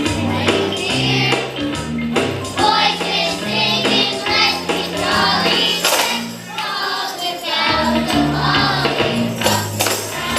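Live holiday music: a group of children singing over bass accompaniment, with a tambourine shaken and struck throughout.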